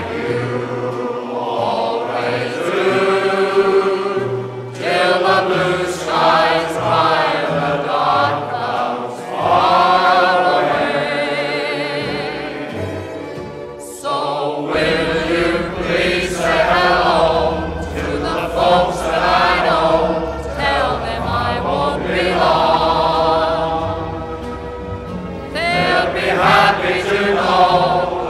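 Background music with singing. A low bass part comes in about halfway through.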